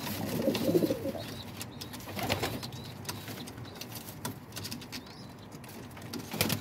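Domestic pigeons fighting in a wooden nest box: sharp, irregular wing slaps and scuffles, with a low pigeon coo about half a second in.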